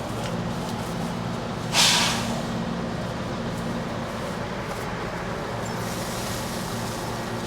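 Combine harvester's diesel engine running steadily, with a short loud hiss about two seconds in.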